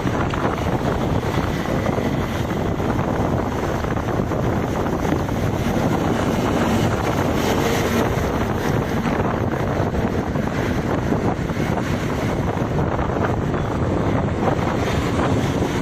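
Steady rush of wind buffeting the microphone, over the low rumble of a moving vehicle.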